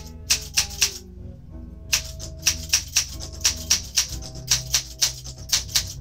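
Olympia SM8 manual typewriter being typed on: sharp keystrokes at about four a second, with a short pause about a second in. Music plays underneath.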